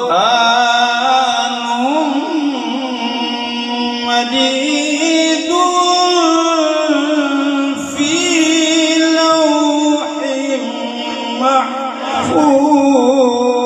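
A man reciting the Quran in the melodic tilawat style, in long held, ornamented phrases, his voice amplified through a microphone. The phrases break briefly about eight and twelve seconds in.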